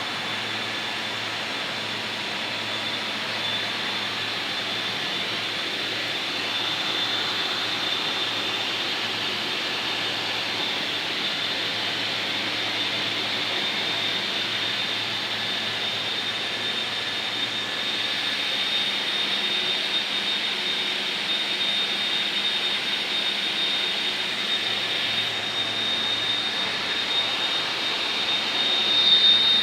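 TIG welding arc on titanium, a steady hiss with a thin, constant high whine, getting a little louder over time and swelling briefly near the end.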